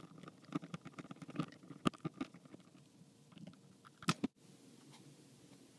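Hand screwdriver turning small screws into a plastic hub: an irregular run of clicks and scrapes from the bit working in the screw heads, with two louder clicks about four seconds in. The sound then stops abruptly, leaving faint room hiss.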